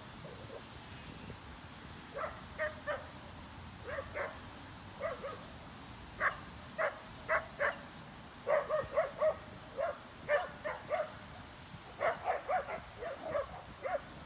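Dog barking in quick volleys of short, pitched barks, two to five at a time, with short pauses between volleys.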